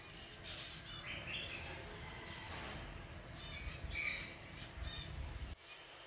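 Small birds chirping: scattered short, high-pitched chirps and quick trills, busiest about three and a half to four seconds in.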